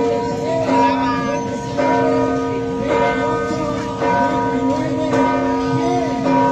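Large church bell struck over and over, about once a second, each stroke renewing a steady ringing tone that carries between strikes.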